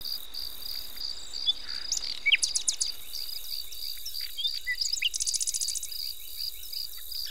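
Crickets chirping in a steady, high, pulsing trill, with birds twittering over them in short up-and-down chirps and a quick rapid trill about five seconds in.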